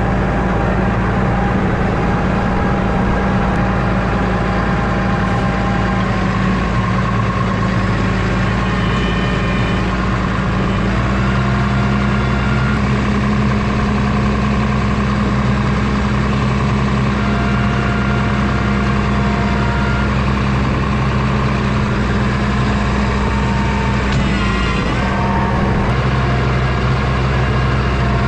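Farm tractor's engine running steadily while moving hay bales, its note stepping up to a slightly higher pitch about eleven seconds in.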